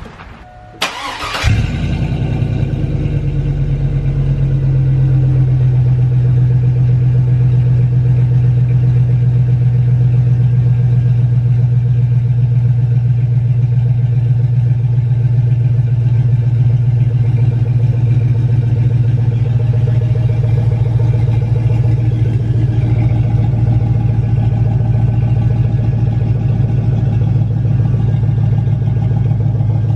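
2002 GMC Yukon V8 starting about a second in, then idling steadily through a Spintech Super Pro 9000 race chamber muffler, with the catalytic converters hollowed out.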